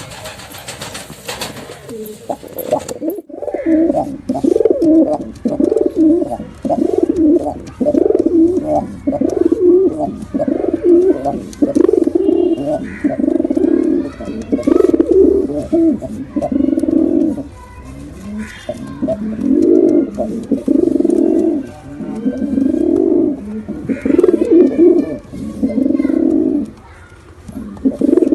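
Domestic pigeons cooing: low coos repeated almost back to back, about one phrase a second. A background hiss cuts off about three seconds in.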